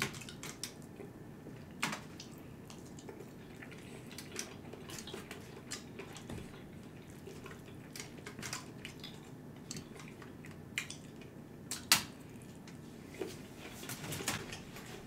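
A plastic fork scraping and tapping in an aluminium foil takeout tray of stir-fry noodles, making scattered clicks and light crinkles. The sharpest clicks come about two seconds in and near twelve seconds.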